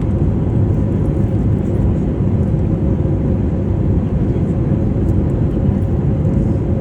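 Steady, low rumbling noise of a jet airliner heard inside the passenger cabin, unchanging throughout.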